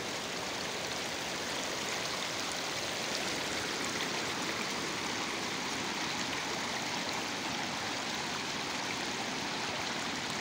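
Shallow floodwater flowing and lapping over a paved road: a steady, even wash of moving water.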